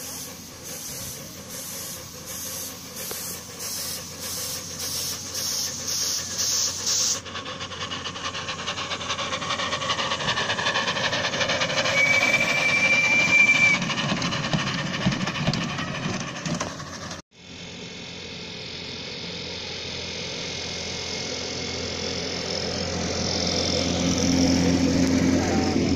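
Live-steam model tank locomotive on a ridden garden railway pulling away, its exhaust chuffs quickening over the first several seconds into a steady running hiss, with one short whistle blast about halfway. After a brief break, steady rolling noise of the loaded passenger cars on the small-gauge track grows louder toward the end.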